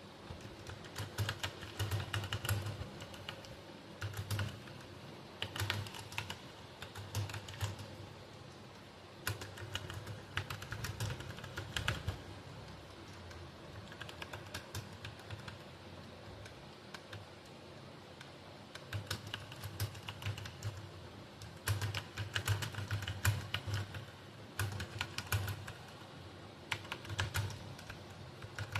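Computer keyboard typed on fast: rapid key clicks in bursts with short pauses, lighter and sparser for a few seconds about halfway through.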